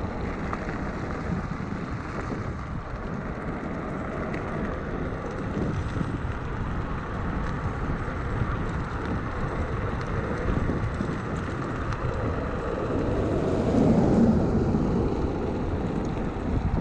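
Wind rushing over the microphone of a camera riding on a fast-moving electric scooter, a steady noise that swells briefly near the end.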